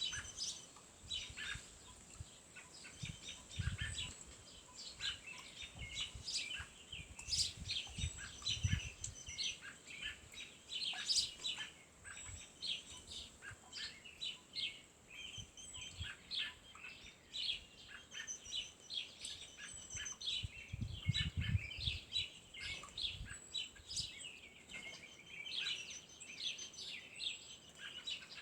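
A chorus of several bird species singing and calling over one another in quick chirps and trills, with a faint steady high tone underneath and a few brief low rumbles.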